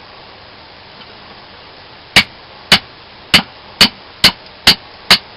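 Mora Clipper knife chopping into a piece of wood: after about two seconds of quiet, seven sharp, evenly spaced blows come roughly two a second.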